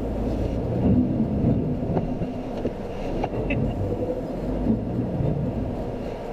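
Low, steady rumble of a Jeep Renegade Trailhawk crawling slowly through mud, heard from inside the cabin: engine, tyres and body noise. A couple of faint knocks come through about two and three seconds in.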